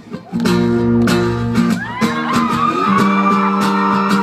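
Live band music with guitar starts about half a second in and plays on loudly, with high voices rising and falling over it.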